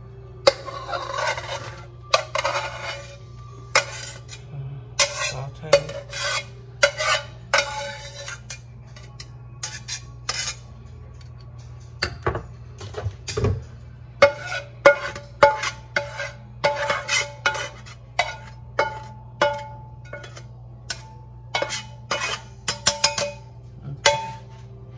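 A metal slotted spatula scraping and knocking against a frying pan, emptying sautéed vegetables into a foil pan. Long scrapes in the first few seconds, then a run of quick, sharp taps on the pan that ring briefly, over a steady low hum.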